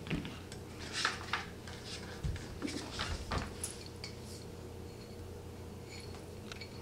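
Light metallic clicks and clinks of small steel Allen keys being handled and set down, several in the first three and a half seconds, then only a few faint ticks.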